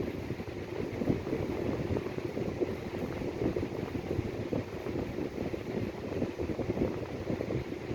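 A steady, low rumbling noise that flickers quickly, with no clear breathing rhythm.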